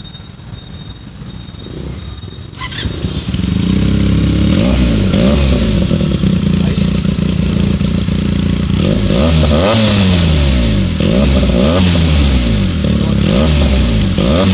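Benelli TNT 300 parallel-twin engine breathing through an Ixil aftermarket exhaust, running low at first. About three seconds in it gets much louder, then it is revved again and again, the pitch rising and falling with each blip.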